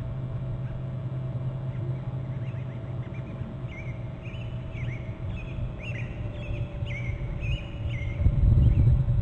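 A bird calling a run of about eight short, high notes, each with a quick hook and a held tail, over a steady low rumble that swells near the end.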